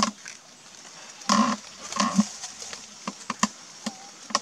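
Dry leaf litter rustling and crackling as a long-tailed macaque rummages through it with its hands. There is a noisy burst about a second and a half in, then a run of sharp clicks and snaps.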